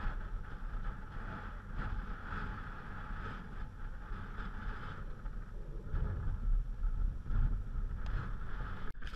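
An ATV engine running as it rides along a gravel trail, with wind buffeting the microphone.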